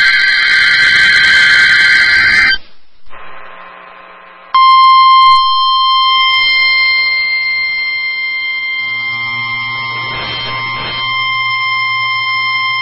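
NOAA Weather Radio test signal. It opens with a harsh, screeching burst of SAME digital header data lasting a couple of seconds. After a short lull, the steady 1050 Hz warning alarm tone comes on about four and a half seconds in and holds at one pitch.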